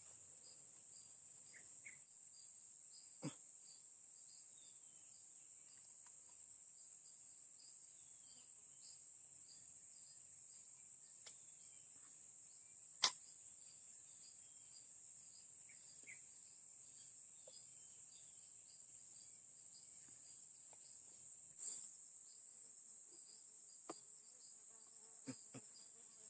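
Insects chirring steadily at a high pitch, with a few faint sharp clicks, the loudest about halfway through.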